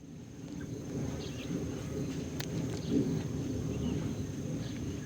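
Outdoor background sound: a low steady rumble with faint, scattered high chirps and a single small click about halfway through.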